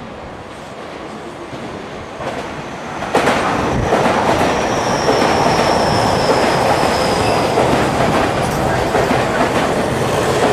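Tokyu 5050 series electric train pulling into the station, growing louder and then loud from about three seconds in as the cars come past. Wheels clatter over the rails, and a thin, high wheel squeal sounds for a few seconds in the middle.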